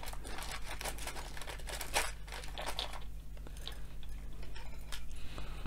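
Rustling, crinkling and light clicks of small hobby tools and packaging being rummaged through to find a pair of tweezers. Dense for about three seconds, then a few scattered clicks.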